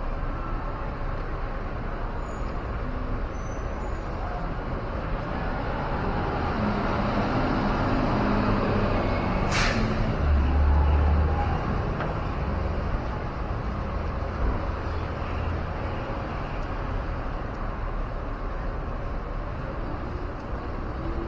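Street traffic noise that swells as a heavy vehicle passes near the middle, with a short sharp air-brake hiss about ten seconds in and a low rumble just after.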